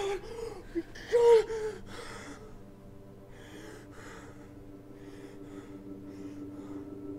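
A woman's gasping, pained cries, the loudest about a second in, followed by heavy breathing. Underneath, a held music tone slowly swells toward the end.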